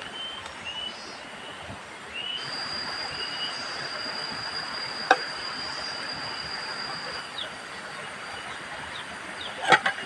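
Insects calling: short rising chirps at first, then a steady high-pitched whine that holds for several seconds before stopping, over a hissing background. A sharp click comes about halfway through, and a louder double click near the end.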